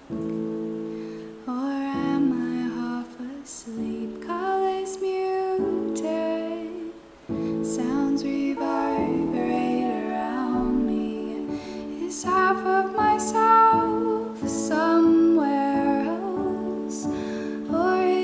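Slow, gentle song with soft female vocal harmonies over sustained piano chords.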